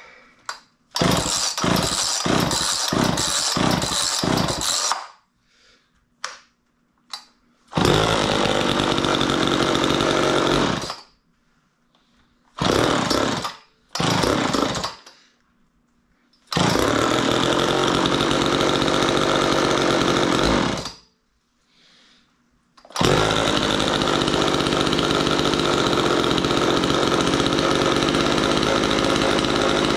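Homelite two-stroke chainsaw engine starting and running in several separate spells, each cutting off abruptly. It first runs in a pulsing, uneven rhythm, then has a few seconds of steady running, two short bursts and another run. It settles into a steady run for the last several seconds.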